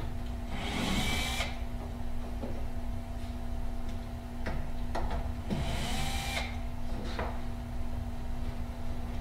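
Cordless drill-driver running in two short bursts of about a second each, turning the screws of wooden hold-down clamps, with a few knocks from handling the wood in between and a steady low hum underneath.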